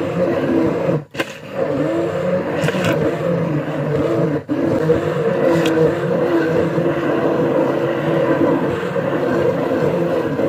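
RTECH hand-held stick blender's electric motor running steadily as it blends a milkshake in a glass jug. It cuts out briefly twice, about a second in and again about four and a half seconds in.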